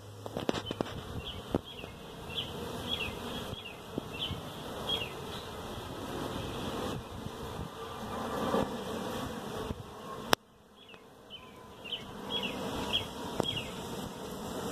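Honeybees buzzing steadily at a busy hive entrance, many flying in and out, with a bee passing close and swelling louder about eight seconds in. A single sharp click comes about ten seconds in.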